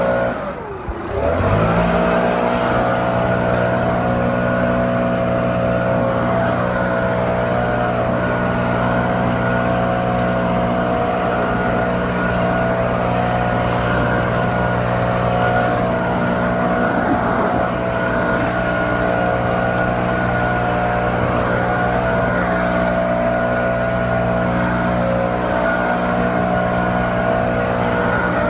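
Stihl BR700 two-stroke backpack leaf blower running steadily at full throttle. In the first second the engine note dips and climbs back up as the throttle is eased off and reopened, then it holds an even pitch.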